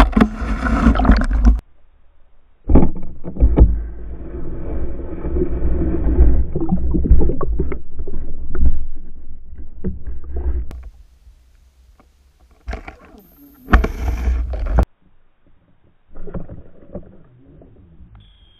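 Water churning and knocking heard through an underwater camera, as a pike strikes a deadbait and struggles on the line. It comes in several loud bursts that start and stop abruptly, with short quiet gaps between.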